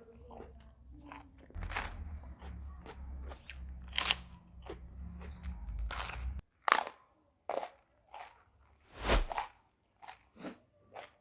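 Close-miked chewing and crunching of crisp food: a series of sharp crunchy bites and chews, the loudest about two-thirds of the way through. A low rumble sits under the first six seconds and then stops.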